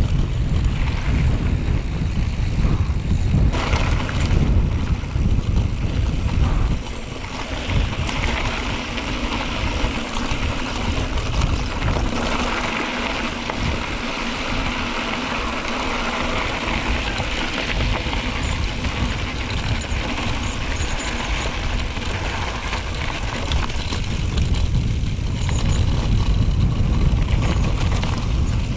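Strong wind buffeting the microphone, a heavy rumble that eases about seven seconds in to a steadier hiss and builds again near the end.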